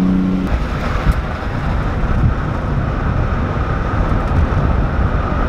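Wind and road noise from a car moving at speed, with wind buffeting the microphone. The steady engine note heard at first drops out about half a second in, buried under the rushing air.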